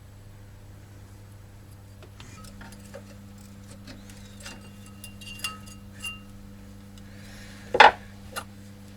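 Light metallic clicks and clinks as stainless-steel brake pad guide plates are worked off a disc brake caliper bracket, ending in a louder sharp clack and a smaller one near the end, over a steady low hum.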